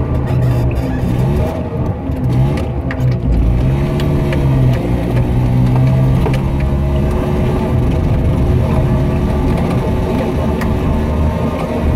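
Piaggio Ape 50's small single-cylinder two-stroke engine running under way, heard from inside the cab. Its pitch dips and rises a couple of times in the first few seconds, then holds fairly steady, with scattered small clicks and rattles.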